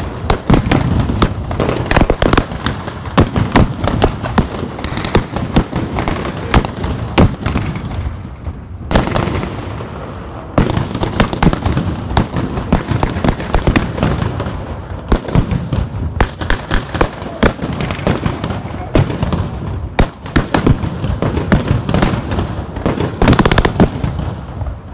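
Gunfire of blank rounds from rifles, many sharp shots in quick, irregular succession, with a short lull about nine to ten seconds in.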